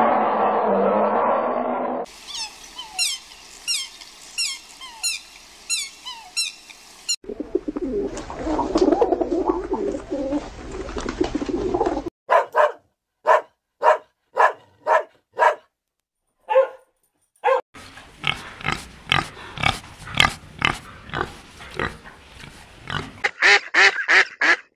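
Different animal and bird calls cut one after another. The first two seconds are a loud noisy mass. Next come about five seconds of rapid high falling chirps, then a noisy stretch, then short calls about twice a second, and after a short pause a dense run of quick short calls.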